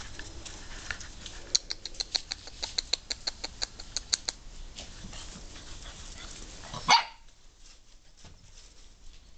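German shorthaired pointer puppies yapping: a quick run of about a dozen short, high yips over roughly three seconds, then one loud yelp that falls in pitch about seven seconds in.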